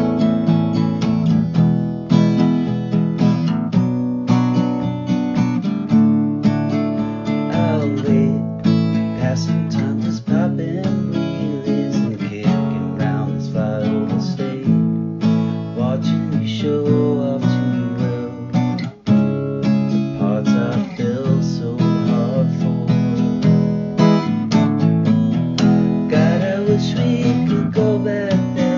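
Acoustic guitar strummed and picked steadily through an instrumental break in the song, with a brief pause about two-thirds of the way through.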